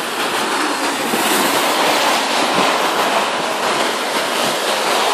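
Gusty storm wind rushing through tree leaves and over the microphone, a steady noise that swells about a second in.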